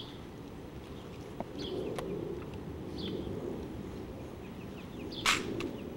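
Quiet outdoor ambience with a steady background hiss, a few faint high chirps, two sharp clicks in the first two seconds, and a short rushing noise a little after five seconds in.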